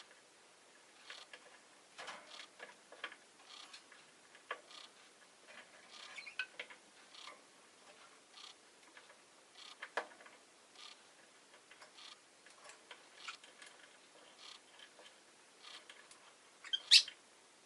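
Rosy-faced lovebird making scattered soft clicks and ticks, with a faint short chirp about six seconds in and one short, loud, sharp chirp near the end.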